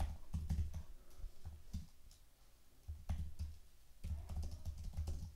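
Typing on a computer keyboard: quick runs of keystrokes, with a pause of about a second in the middle before the typing picks up again.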